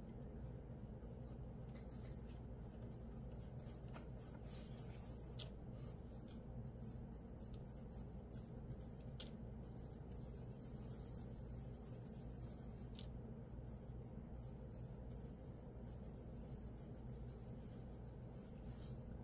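Faint rubbing and scratching with a few light clicks scattered through, over a steady low hum.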